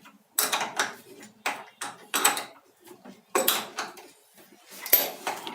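Hard clanks and scraping rattles of plumbing tools and fittings being handled, in about five separate knocks roughly a second apart.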